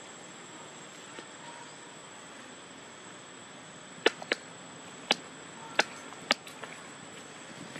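Five sharp clicks in quick succession about four to six seconds in, over a steady background hiss with a thin, constant high-pitched tone.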